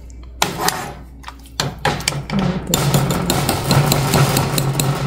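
Metal ladle stirring soup in a stainless steel stockpot, clinking and scraping against the pot's sides and sloshing the broth, with a run of rapid clicks and a low hum underneath in the second half.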